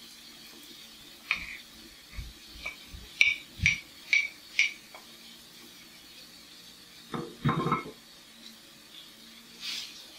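Wooden spatula and plate knocking and clinking against a frying pan as chopped vegetables are tipped in: about seven short knocks in the first half, then a second or so of the spatula scraping and stirring in the pan.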